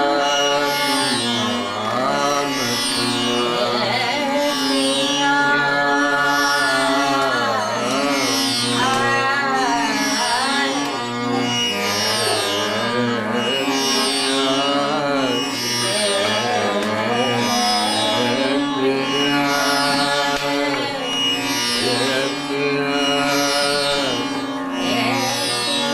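Indian classical singing: one voice holds and slides through ornamented melodic phrases over a tanpura drone, whose strings are plucked in a steady repeating cycle about every second and a half.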